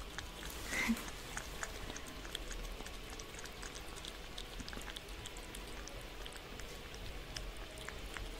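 Kitten lapping from a ceramic mug with its head inside it, heard close up as a stream of small, irregular wet clicks and licks. One brief louder sound about a second in.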